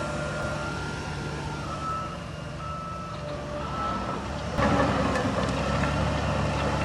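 A heavy construction machine's reversing alarm beeping about once a second over its steady diesel engine drone. The engine gets louder about two-thirds of the way through.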